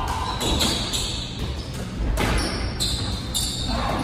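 Squash doubles rally: a squash ball struck by rackets and smacking off the court walls with several sharp, echoing hits, while court shoes squeak on the hardwood floor.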